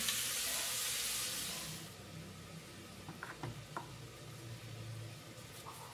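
Chunks of beef sizzling as they brown in a pot, a steady hiss that cuts off about two seconds in. Then a few faint clicks over a low hum while a chayote is peeled.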